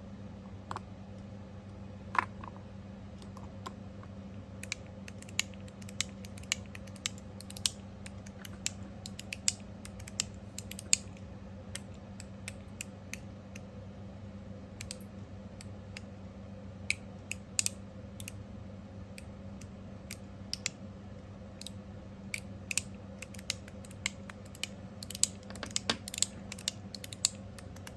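Copper TopB mechanical fidget slider being slid back and forth by hand: irregular sharp clicks as its spring-loaded detent balls in brass cups snap into the click tracks, with some springy noises. The clicks come faster near the end.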